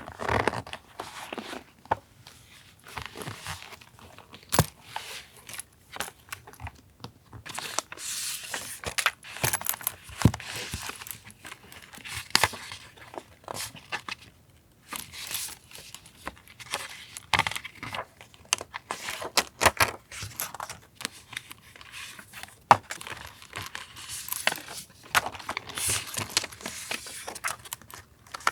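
Paper being handled for a journal collage: irregular bursts of rustling, crinkling and tearing paper, with sharp taps and clicks between them.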